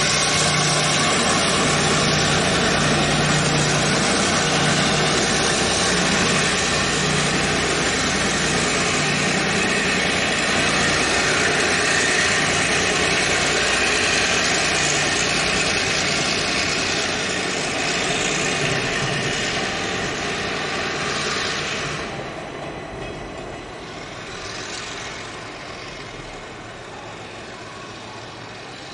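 Diesel locomotive of a freight train pulling away, its engine running steadily over the noise of the train rolling on the rails. The sound fades as it draws off and drops away about 22 seconds in.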